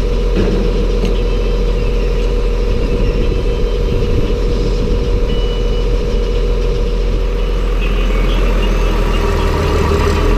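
Engine-driven feed grinder running steadily while grinding a batch of livestock feed, a loud constant machine drone with a steady hum.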